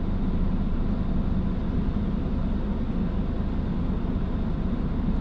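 Car engine idling, a steady low-pitched sound heard from inside the stopped car's cabin.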